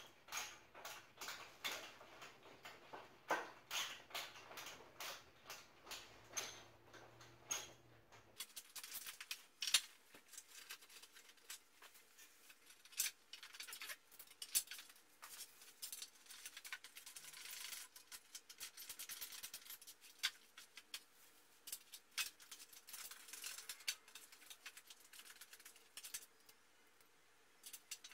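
Bolts being tightened into a wooden bed frame with a small hand wrench: a long run of quick, light metallic clicks and scrapes.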